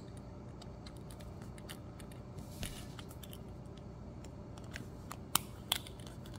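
Plastic back cover of a Volkswagen Passat key fob being pressed and fitted onto the fob by hand: faint plastic rubbing and small clicks, with two sharper clicks about five and a half seconds in.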